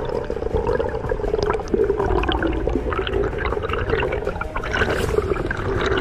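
Underwater sound picked up through a camera housing: a muffled water rush and gurgle with many small crackling clicks, and a louder gush of water near the end.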